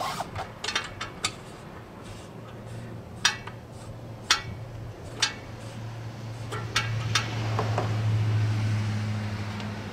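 Sharp metallic clinks and clicks as a brass hose fitting is turned by hand onto the metal swivel connector of an Eley wall-mount hose reel: a quick cluster at the start, then single clicks every second or so. Underneath, a low hum builds and is loudest near the end.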